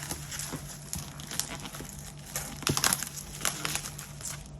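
Packaging of a boxed RC car being opened and handled by hand: crinkling and rustling with small clicks and scrapes, busiest around the middle.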